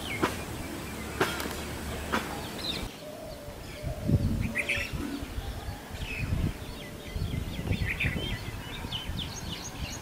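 Red-vented bulbul calling: clusters of short, bright chirping notes from about four seconds in. Low rumbling runs underneath, and a few sharp clicks come in the first seconds.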